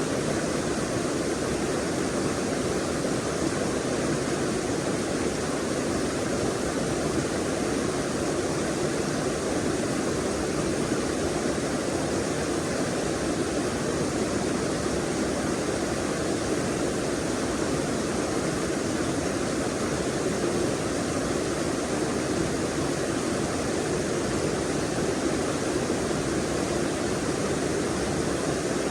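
Forest stream water running steadily, an even rushing noise that holds without a break.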